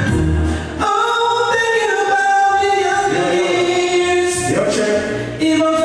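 Recorded song played loud through a club sound system: sung vocals holding long notes, with heavy bass under the first second.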